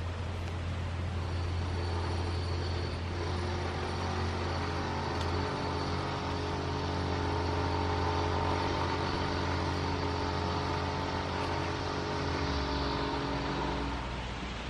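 An engine running steadily, swelling a little toward the middle and fading near the end, over a constant low hum.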